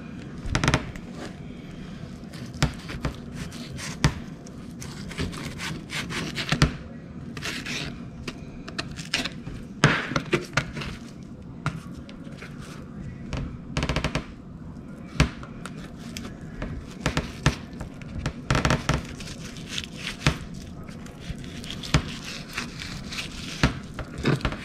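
Knife scraping and knocking on a cutting board as a fish is filleted: irregular scrapes and sharp taps, a few seconds apart.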